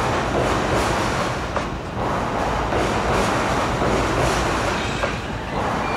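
JR East E531 series electric train passing close by: a steady rumble of steel wheels on the rails, with brief dips about two seconds in and near the end as the cars go by.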